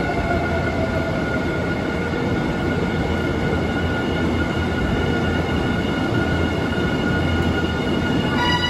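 Electric commuter train moving past along a station platform: a low rumble of wheels under a steady high whine. Just before the end a new whine starts and slowly rises in pitch.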